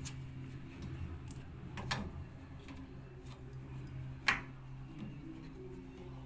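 Bosch washing machine running with a steady low hum, broken by four sharp clicks, the loudest a little past the middle.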